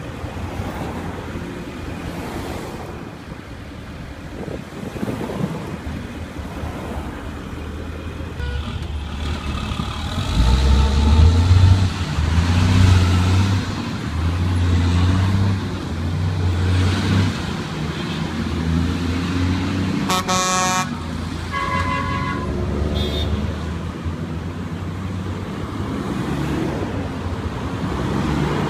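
Street traffic with a heavy truck's diesel engine running, strongest through the middle stretch. A vehicle horn blows for about a second roughly two-thirds of the way through, followed by two shorter toots.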